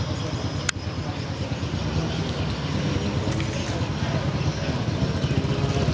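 Small moped engine running as the bike approaches, its low hum growing louder near the end. A single sharp click comes under a second in.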